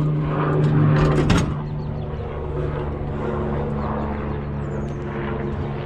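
An engine idling steadily, with a couple of sharp knocks about a second in.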